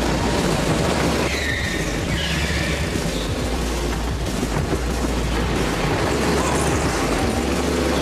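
Go-kart engines running hard as the karts race, a steady dense rumble, mixed with background music.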